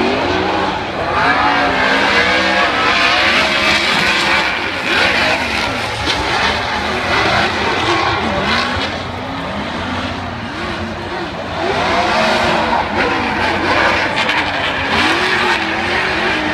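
Two drift cars sliding in tandem, their engines revving hard and swinging up and down in pitch over and over, with a constant hiss of tyre squeal.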